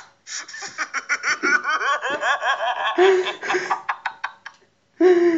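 Hard, continuous laughter: a long run of rapid, high-pitched bursts with breathy gasps between them. It breaks off briefly about four and a half seconds in, then another burst starts.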